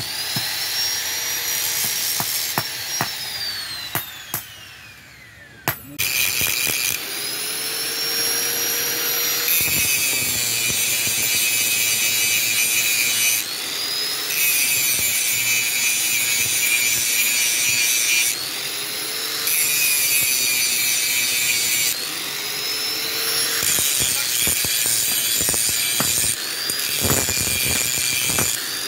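Electric angle grinder with a sanding disc grinding a steel badik blade made from bearing steel. It goes in repeated passes a few seconds long, the motor's whine sagging and recovering with each pass. It is quieter over the first few seconds, with a falling whine, before the loud grinding starts about six seconds in.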